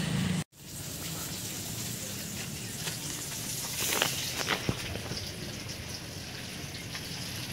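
Fish frying in oil in a wok over a wood fire: a steady sizzle, with a few sharp crackles about four seconds in.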